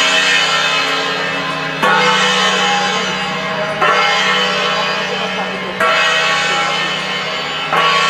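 A large struck metal percussion instrument, bell- or gong-like, hit about once every two seconds, four strokes in all. Each stroke rings on with many tones and fades slowly until the next one.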